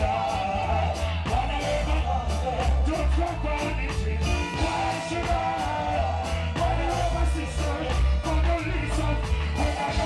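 Live reggae band playing, with a deep bass line and a steady drum beat, and a man singing over it.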